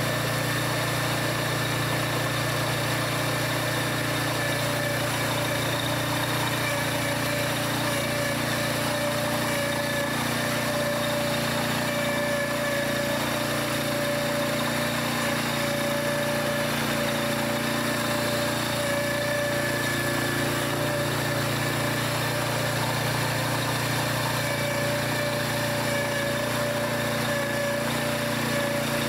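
All-terrain vehicle engine running steadily at an unchanging pitch.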